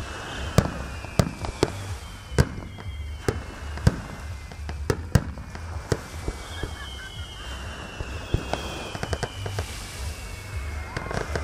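Fireworks display: aerial shells bursting in sharp, irregular bangs, sometimes several a second. Long whistles slide slowly down in pitch between the bangs.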